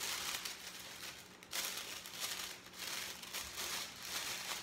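Clear cooking film crinkling in irregular bursts as its four corners are gathered and bunched up into a parcel.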